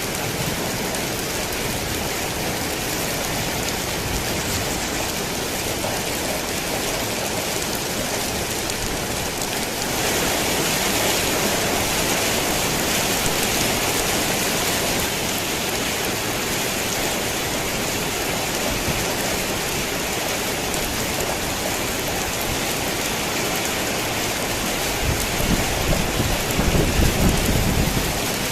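Heavy rain pattering steadily on a tin roof. It grows louder about a third of the way in, and a low rumble of thunder comes near the end.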